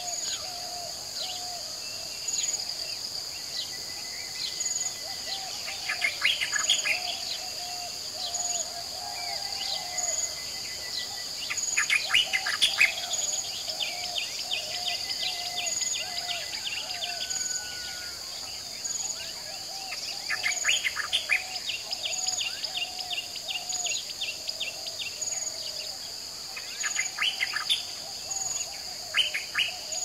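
Lakeside chorus of crickets and frogs: a steady high insect trill with a brighter pulse about every two seconds, a lower warbling chorus, and loud bursts of rapid rattling calls five times.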